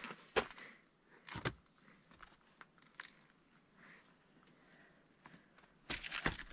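A few separate footsteps and knocks, spaced a second or more apart, as someone climbs slowly down old, wobbly steps.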